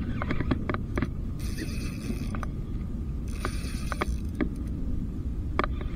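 Spinning reel working under the load of a hooked fish: sharp clicks, and two short spells of whirring about a second long, over a steady low rumble of handling and wind noise on the microphone.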